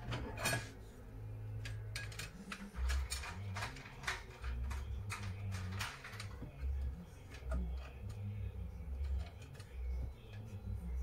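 Scattered small clicks and taps of plastic and metal parts as a laser printer's fuser unit is handled and its parts are fitted by hand, over an uneven low rumble.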